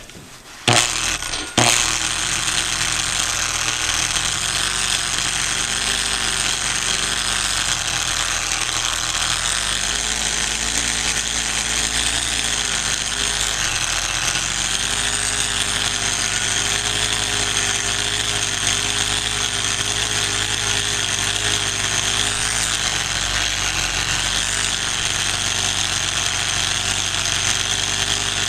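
A 4.5-inch angle grinder fitted with a wool buffing pad, buffing polishing glaze into a repaired chip on a granite countertop. It starts with a couple of short bursts about a second in, then runs steadily, its pitch wavering slightly as the pad is worked against the stone.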